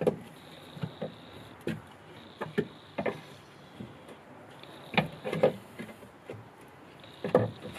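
Scattered knocks, clinks and scrapes of metal as the top mounting bolts of a Mini's rear suspension strut are undone and the strut is worked loose in the wheel arch, louder about five seconds in and again near the end.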